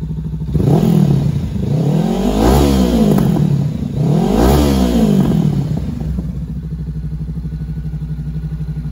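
2020 Honda CB500X parallel-twin engine through an aftermarket Termignoni carbon slip-on muffler, idling and blipped three times, each rev rising and falling in pitch, then settling back to a steady idle.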